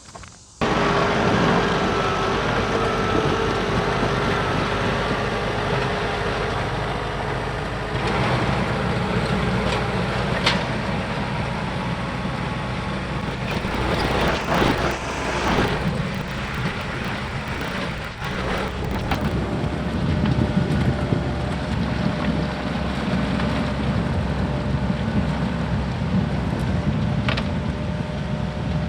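John Deere compact tractor's diesel engine running steadily at working speed. It changes note about a third of the way in, and a few sharp knocks and clatters come through.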